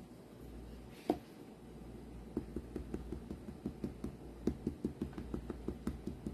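A single knock about a second in, then a quick run of light taps, about five or six a second, from hands working paper card pieces on a tabletop.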